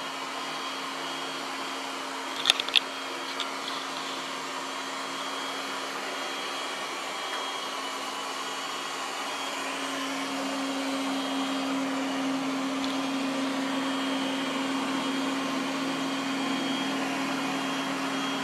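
Ecovacs Deebot T9+ robot vacuum running on carpet with a steady suction hum, its suction raised for carpet. The hum grows louder about halfway through, and there are two or three sharp clicks about two and a half seconds in.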